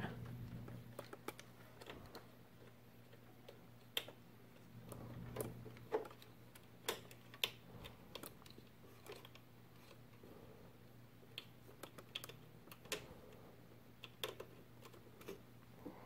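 Faint, irregular clicks and taps of cables, tubing and plastic connectors being handled inside a computer case, over a steady low hum.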